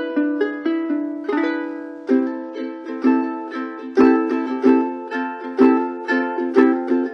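A TUTTI JR-10 ukulele, with a linden top and ABS plastic back and neck, played in a demonstration. It picks a melody of single notes, then switches to strummed chords about two seconds in.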